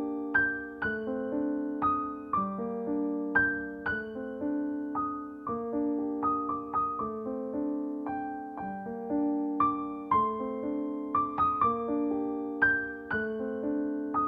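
Background piano music: a gentle melody of notes struck about twice a second, each one fading away.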